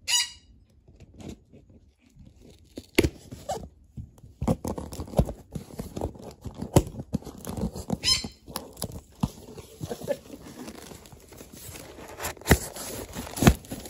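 A package being opened and handled by hand: irregular knocks, clicks and rustling, with short sharp tearing sounds at the start and again about eight seconds in.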